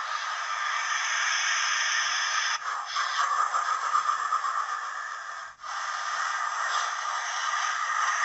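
Steam locomotive sound from the Hornby Flying Scotsman model's TTS sound decoder, played through the model's small speaker: a steady hiss of steam with no bass. It cuts out briefly about five and a half seconds in.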